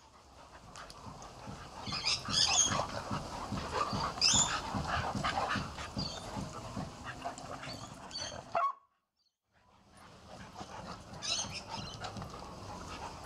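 Several dogs play-fighting, with low growling throughout and a few short, high-pitched yips. The sound drops out for about a second partway through.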